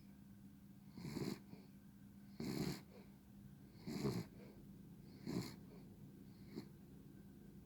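A dog snoring, one rasping breath about every second and a half, five in all, the last one short and weak. This is the noisy snoring that the uploader puts down to laryngeal paralysis, where a floppy larynx blocks the airflow.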